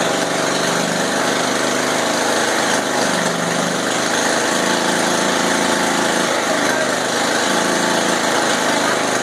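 Small single-cylinder motorcycle petrol engine on a homemade hybrid car chassis, running steadily, its speed wavering slightly a few times.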